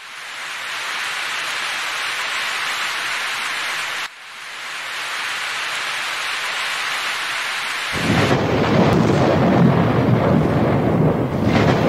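Heavy rain pouring and splashing on wet ground, a steady hiss that drops off suddenly about four seconds in and swells back. About eight seconds in, a deep, continuous rumble of thunder comes in under the rain and is the loudest sound from then on.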